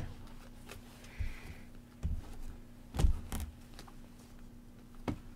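Glossy trading cards being slid and flipped by hand through a stack: a few light clicks and rustles of card stock spread out over the seconds.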